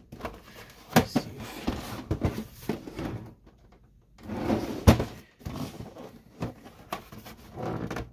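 Plastic scanner lid and top cover of an HP ENVY 5660 printer being lifted, lowered and handled: scattered clicks and knocks of plastic casing, the loudest about five seconds in.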